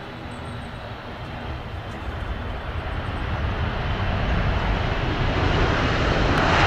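Jet airliner engines on approach, a steady rushing noise growing louder throughout as the aircraft comes closer.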